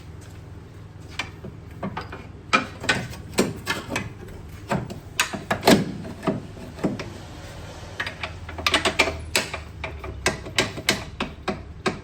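Irregular clicks and clanks of hand tools working on metal car suspension parts, coming in two busy spells, over a steady low hum.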